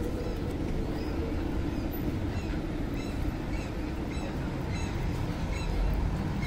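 City street background: a steady low rumble, with short high chirps recurring every half second or so.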